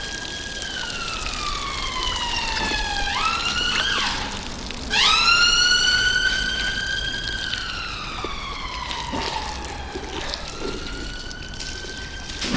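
Emergency vehicle siren wailing, its pitch sliding slowly down and jumping back up several times, loudest about five seconds in.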